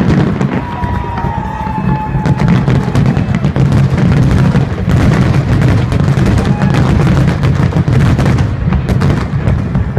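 A dense fireworks barrage: many aerial shells bursting in rapid, overlapping bangs and crackles over a steady low rumble, with music playing underneath.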